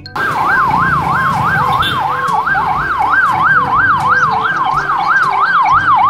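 Police patrol vehicle siren in a fast yelp, rising and falling about three times a second, with a low engine and traffic rumble underneath.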